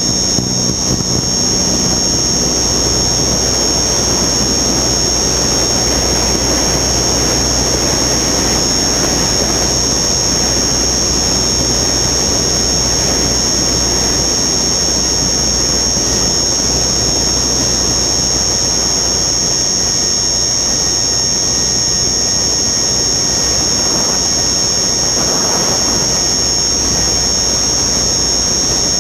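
Onboard sound of a radio-controlled aircraft in flight: its motor running with a steady high whine, over wind rushing past the camera.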